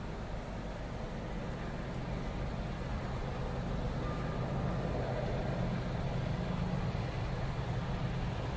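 Diesel-electric freight locomotive approaching, its engine rumble low and steady and slowly growing louder as it nears.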